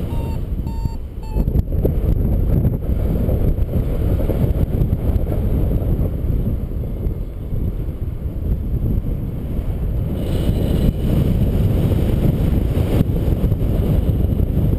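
Wind rushing over an action camera's microphone during paraglider flight, a steady heavy low rumble. A few short electronic beeps sound in the first second or so.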